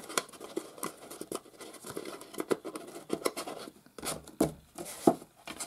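Cardstock lid being pushed down over a cardstock box, a snug fit: a run of short scrapes and taps of card rubbing on card, with a few louder ones near the end.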